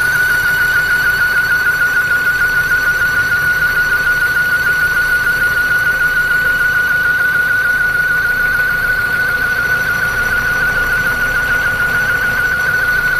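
Nissan Primera P11 GT's SR20DE engine running with a steady, high-pitched squeal at one unchanging pitch from the drive-belt area. The squeal comes on when the engine is hot, although the belts are new.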